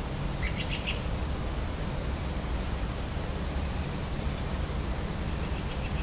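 Steady low hum of distant road traffic with small birds calling over it: a quick burst of chirps about half a second in, a few faint high single chips after, and a faint run of notes near the end.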